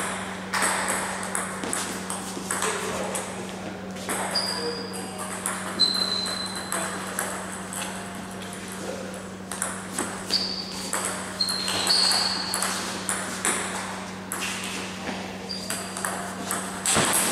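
Table tennis balls being hit in rallies at several tables at once: rapid, irregular clicks of ball on bats and tables, under a steady low hum.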